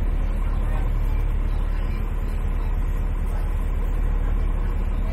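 A boat's engine running steadily: an even, low drone with no change in speed.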